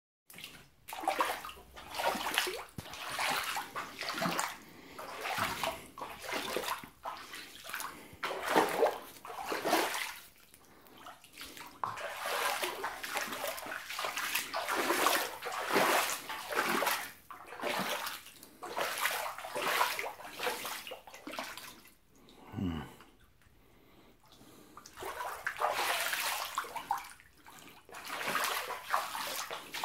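Flood water on a basement floor sloshing and splashing as someone wades through it, in irregular swells about once a second. The sloshing stops for a few seconds about three quarters of the way through, then resumes.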